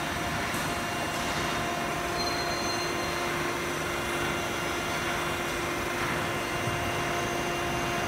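Steady machinery noise from an HVAC duct production line running, a constant hum with a steady tone through it.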